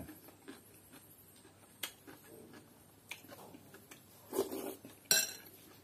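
Close eating sounds from a spoonful of fried rice: a few sharp clicks and smacks, then a louder noisy mouth sound as the spoonful is taken about four seconds in, followed at once by a sharp smack.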